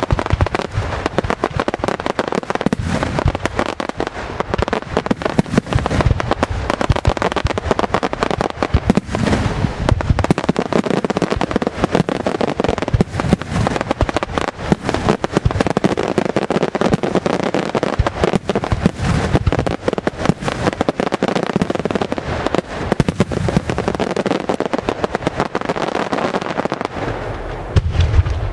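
Aerial fireworks display: a dense, continuous barrage of shell bursts, bangs and crackling with no pause. Near the end the barrage briefly thins and a low boom follows.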